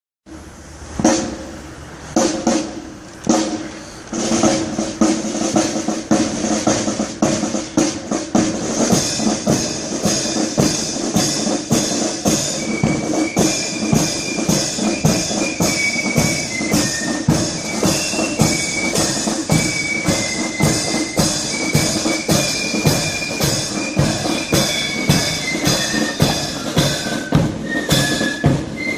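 Marching flute band playing a march: flutes carry the melody over a steady marching beat from the side drums and bass drum. The band grows louder over the first few seconds as it approaches.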